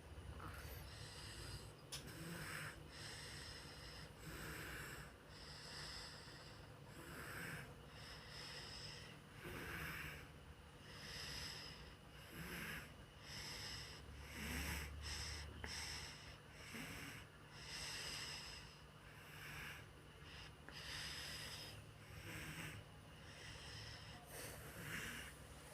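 A sleeping person snoring, a noisy breath coming every two seconds or so, fairly faint.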